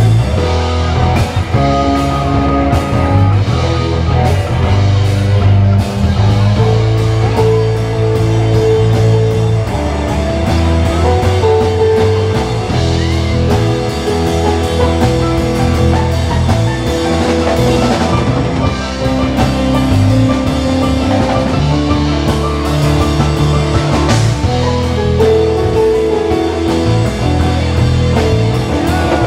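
Live jam band playing funk-rock: drum kit, electric guitar and keyboards over a prominent bass line, loud and continuous.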